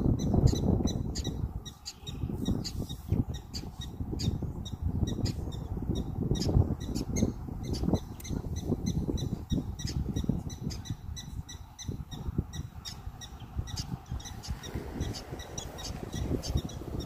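Prairie dog colony chirping: many short, high-pitched calls, several a second, over a fluctuating low rumble.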